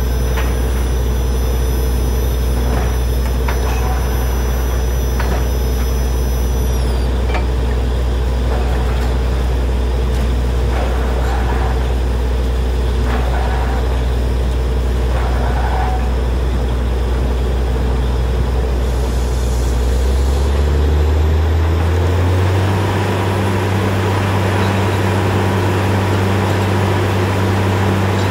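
Truck-mounted borewell drilling rig's engine and air compressor running loud and steady, with occasional short knocks in the first half. About 21 seconds in, the engine speeds up and settles at a higher steady note.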